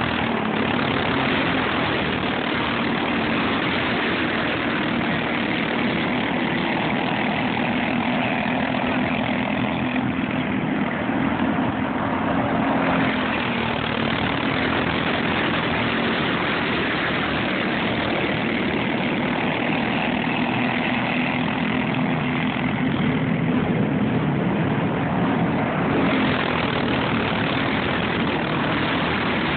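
Several go-kart engines running hard together as a pack laps a dirt oval, a steady mixed engine drone.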